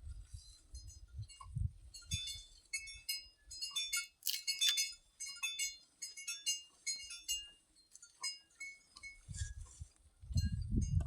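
Several cowbells on grazing cattle clanking irregularly, in clusters of quick ringing strikes that are busiest a few seconds in. A low rumbling comes in near the end.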